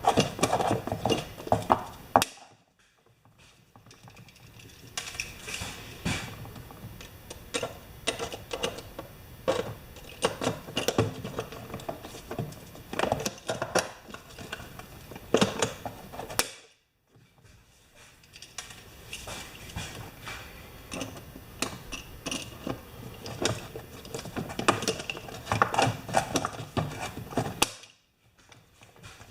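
Hand pop-rivet gun being worked, with repeated clicks and clatter of the tool and small metal parts while rivets are set. The sound breaks off into near silence three times.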